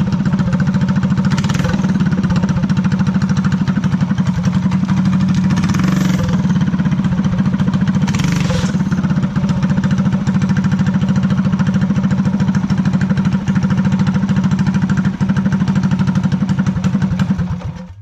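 Drift trike's Predator 212 single-cylinder engine running at a steady speed, with a few short rushing bursts over it. It cuts off suddenly near the end.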